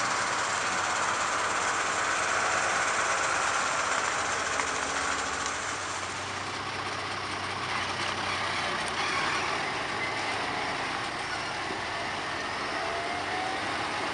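Heavy fire truck's diesel engine running steadily as the truck crawls through deep ruts and over gravel mounds.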